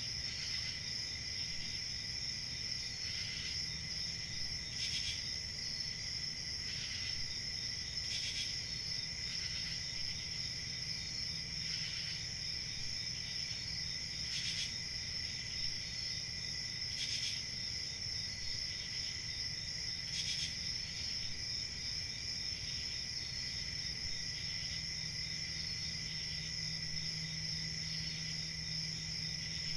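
Crickets chirping in a steady chorus, a continuous high trill with louder individual chirps standing out every second or two.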